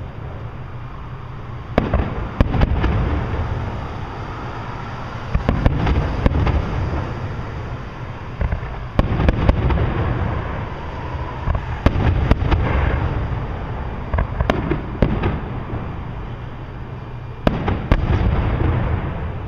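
Aerial fireworks shells bursting overhead: about a dozen sharp bangs at uneven intervals, each trailed by a low rumbling echo.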